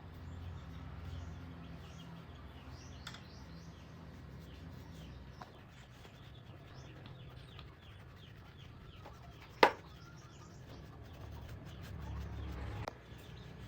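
Faint chirping of small birds over a low hum, with a few light clicks and one sharp, loud click a little before ten seconds in.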